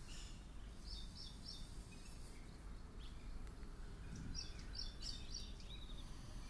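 Faint bird chirps: a few short high notes about a second in, and another small cluster about four to five seconds in, over a low steady background hum.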